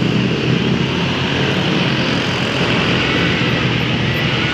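Bus diesel engine running close by, a steady loud drone.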